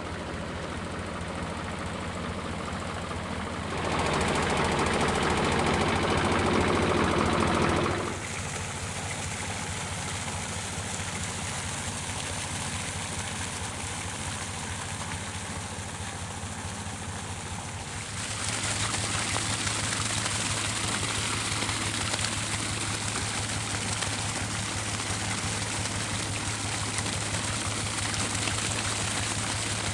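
Tractor diesel engine running steadily under a rush of liquid manure gushing from the rear outlet of a slurry tanker onto grass. The rushing swells louder for a few seconds about four seconds in, and again and hissier from a little past halfway on.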